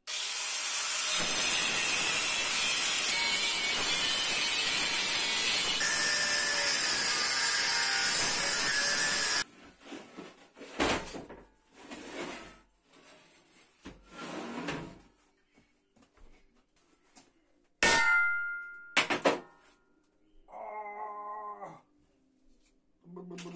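Angle grinder running against steel for about nine seconds, then shutting off. Metal knocks follow, including two sharp ringing clangs of steel struck together.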